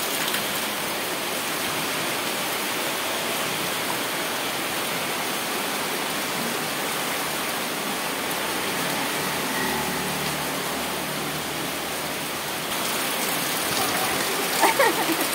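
Steady downpour of rain falling on a wet concrete yard, an even hiss with no let-up.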